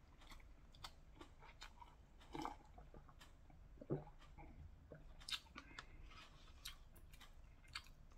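A person chewing instant udon noodles with soft, wet mouth clicks, and sipping hot broth from a paper cup about four seconds in.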